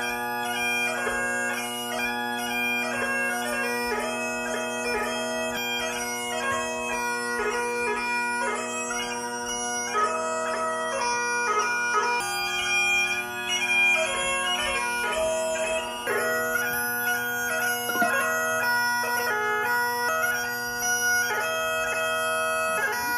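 Great Highland bagpipe playing a dance tune: steady drones held underneath a chanter melody of quick, ornamented notes.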